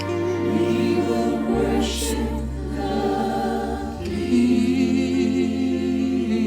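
A choir singing a slow worship song, its voices holding long notes, over steady low bass notes that change every second or two.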